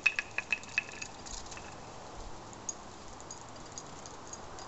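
A quick run of light metallic clinks, about six in the first second, then only faint ticks: a small dog's collar tags jingling as it trots.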